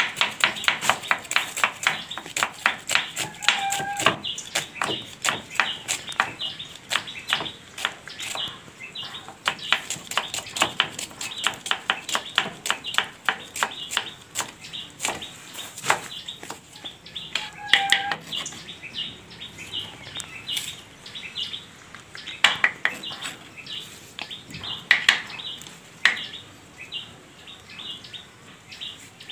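Kitchen knife slicing red onion on a wooden chopping board: quick, even taps of the blade striking the board, thinning out past the middle. A bird chirps briefly twice in the background.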